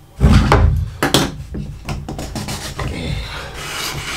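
A wooden slide-lid cigar box being handled: a few sharp knocks of wood on wood, then from about halfway a steady scraping as the wooden lid slides along its grooves to open the box.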